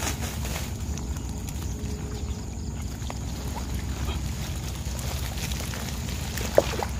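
Wire-mesh fish trap being tipped and shaken to slide live catfish into a plastic sack: soft rustling and scattered light knocks over a steady low rumble, with one sharp short sound near the end.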